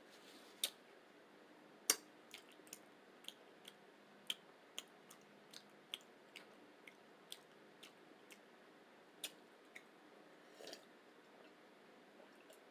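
Close-miked chewing of a rice-and-beans burrito: soft, wet mouth clicks and smacks, about two a second, the loudest about two seconds in.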